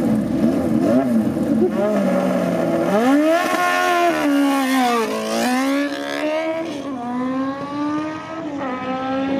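Kawasaki Z1-based 1197cc air-cooled inline-four drag bike blipping its throttle at the start line, then launching at full throttle about three seconds in. It pulls away through several upshifts, the engine note climbing and dropping at each shift and growing fainter as it goes.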